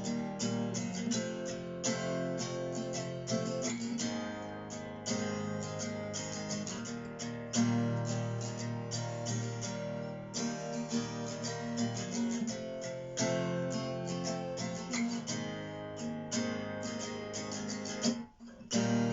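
Acoustic guitar strumming chords in an instrumental interlude, with no singing. The strumming breaks off briefly near the end, then picks up again.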